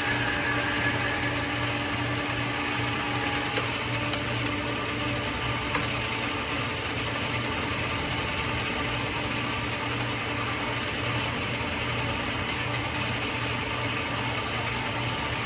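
Steady running of a machine: an even mechanical noise with a low hum and a few faint steady tones, without pause, with a few light ticks about four and six seconds in.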